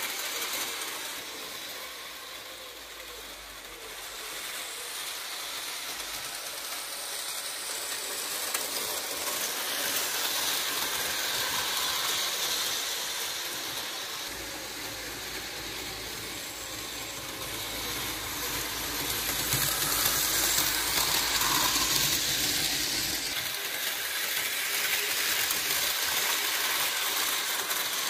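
Märklin HO model train, an F7 diesel locomotive with freight cars, running on metal track: a steady rolling rattle of wheels on the rails that grows louder and fainter as the train circles the layout.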